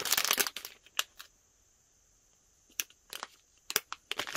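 Clear plastic packaging bag crinkling and rustling as it is handled and turned over, in short bursts: the loudest at the start, then scattered crackles and clicks near the end with a near-quiet stretch in between.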